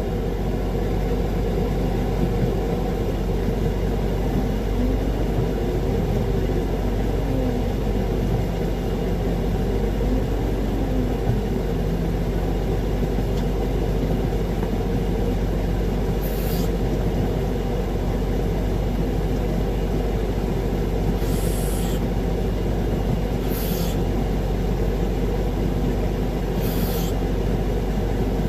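Concrete mixer truck's diesel engine running steadily while the drum discharges into a line pump, revved up and back down twice in the first dozen seconds to speed the drum and refill the pump's hopper. Four short hisses break in over the second half.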